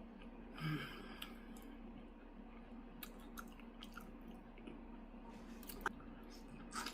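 Close-miked chewing and soft mouth clicks of someone eating chicken feet, with a brief louder mouth sound or murmur about a second in.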